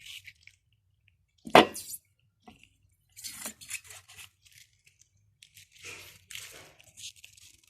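A sharp knock about one and a half seconds in, then scattered wet squelches and dabs as slime is scooped out of water with a container lid.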